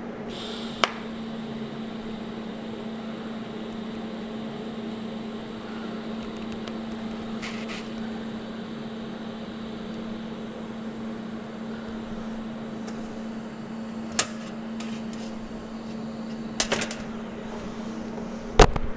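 Steady electrical hum from shop equipment, with a few sharp clicks and clinks of metal being handled; the loudest knock comes near the end.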